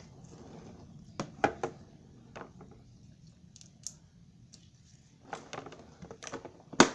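Hard clicks and knocks of small plastic slime containers being handled and set down. There are three sharp ones about a second in, a quick flurry near the end, and the loudest knock just before the end.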